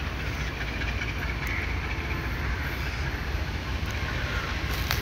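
Diesel-electric locomotive of the M10A class pulling a train out of the station, heard as a steady low rumble with no rhythm to it. A single sharp tap comes right at the end.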